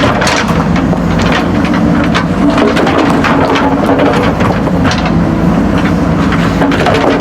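JCB backhoe loader's diesel engine running steadily at a constant pitch, with frequent sharp knocks and crunches from the machine working the soil.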